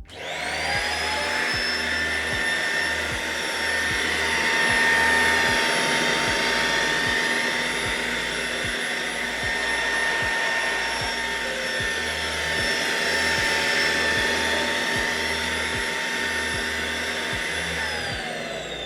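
Deerma CM919 handheld dust mite vacuum cleaner switched on, its motor whining up to speed and running steadily with a low, uneven pulsing underneath. Near the end it is switched off and the whine falls away slowly as the motor winds down.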